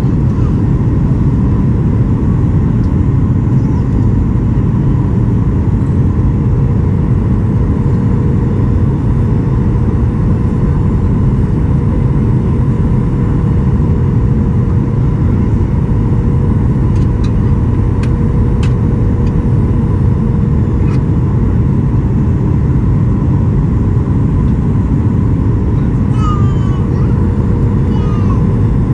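Steady cabin noise inside a Boeing 737 MAX 8 on approach: a deep rush of airflow and engine noise from the CFM LEAP-1B engines with a steady hum over it. A few faint clicks come about two-thirds of the way through.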